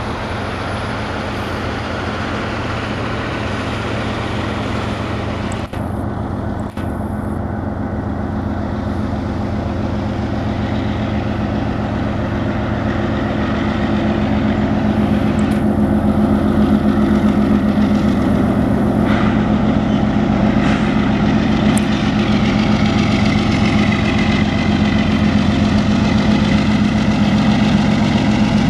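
Union Pacific diesel locomotives hauling an intermodal freight train, their engines running with a steady low drone that grows louder about halfway through as they draw closer.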